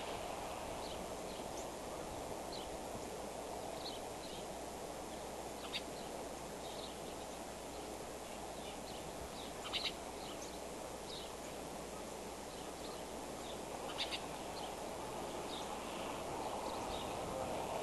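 Outdoor ambience at a snowy eagle nest: a steady background rush with scattered short, high bird chirps, a few of them louder and sharper, about six, ten and fourteen seconds in.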